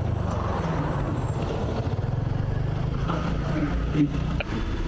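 Motorbike engine running steadily under way, with road and traffic noise. A short knock about four seconds in.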